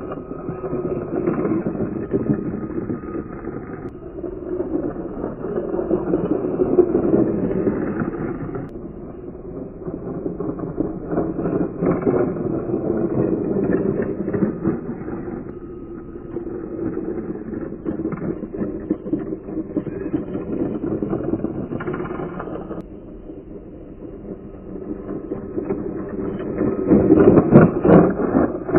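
A 3D-printed F1-style RC car's motor and tyres running on asphalt. The sound swells and fades as the car drives toward and away, loudest as it passes close near the end.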